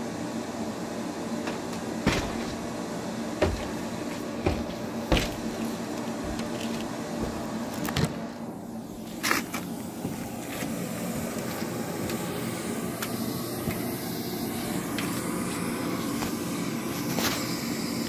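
A steady mechanical hum runs throughout, broken by a scattering of sharp knocks and clatters, the loudest about two, three and a half and five seconds in.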